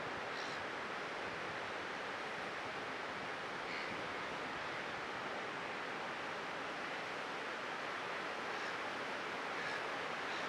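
Ocean surf breaking, a steady even wash of noise.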